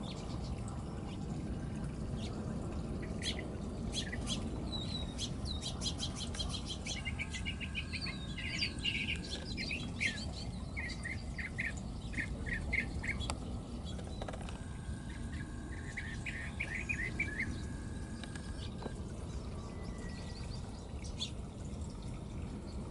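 Wild birds chirping and calling: scattered short chirps, then runs of quick repeated chirps through the middle, over a steady low background rumble.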